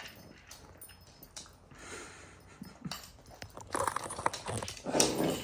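A basenji nosing and pushing a plastic treat-dispenser wobble toy to get kibble out: scattered clicks and rattles of the kibble and of the toy knocking against the floor, busiest and loudest near the end.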